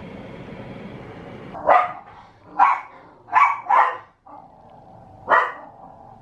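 A dog barking: five short, sharp barks over about four seconds, starting a little under two seconds in, two of them in quick succession.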